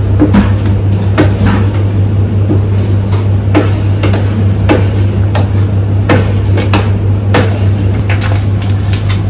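Long paddle stirring a thick chicken mixture in a stainless Rational tilting cooking pan, knocking and scraping against the pan about once or twice a second, over a steady low machine hum.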